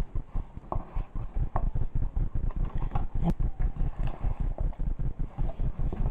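A spoon stirring and tossing cassava salad in a pot: rapid, even low knocks several times a second, with the odd sharper clink of the spoon against the pot.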